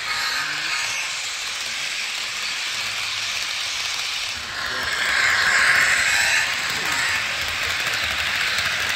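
HO scale model train with an EMD E8 locomotive and boxcars running past on the track: a steady hissing noise that swells about five seconds in as the cars pass close.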